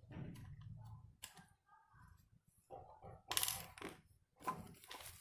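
Irregular clicks and short rattles of small hard parts being handled, the loudest a rattling burst about three and a half seconds in, over a low hum that stops after about the first second.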